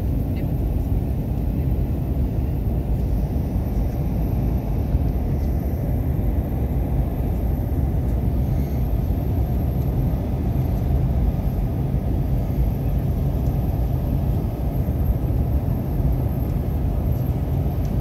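Steady low rumble of an airliner's cabin noise, engine and airflow heard from inside the passenger cabin during the approach descent.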